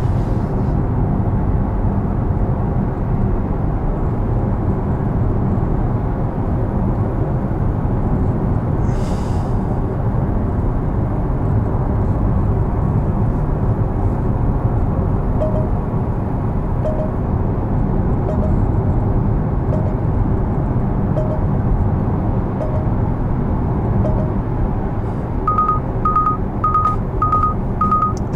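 Steady road and tyre noise inside a Porsche Taycan Turbo S on a wet road. Soft ticks about every second and a half come in around the middle. Near the end a run of high warning beeps starts, about two a second: the car's driver-assistance warning.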